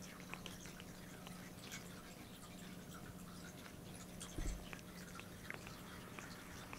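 Cat grooming its paw close to the microphone: faint, irregular wet licking and nibbling clicks. A single low thump about four and a half seconds in.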